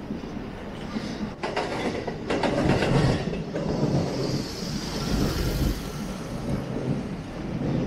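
A train passing along the tracks, its wheels clicking in a quick run over the rail joints, with a higher whine rising over the rumble around the middle.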